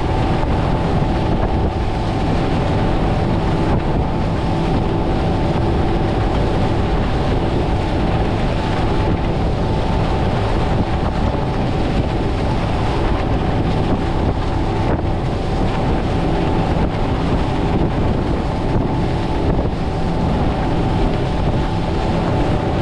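Twin Mercury V10 350 Verado outboards running steadily at speed, a constant engine drone under wind buffeting the microphone and water rushing past the hull.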